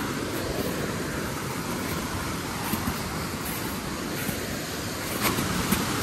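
Steady rushing of a nearby mountain stream, with a few faint clicks over it. The rush grows a little louder near the end.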